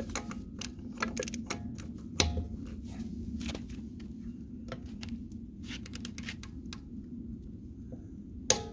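Irregular light metallic clicks and taps of hand tools and sockets being handled, some in quick clusters, over a steady low hum. One louder metallic clank rings briefly near the end.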